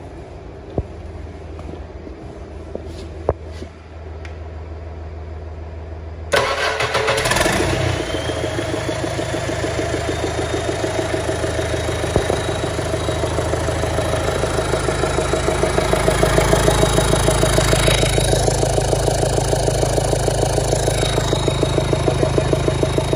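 A rebuilt Caterpillar C4.4 four-cylinder diesel engine starting. It catches suddenly about six seconds in, then runs steadily with an even rhythmic beat and gets louder about two-thirds of the way through.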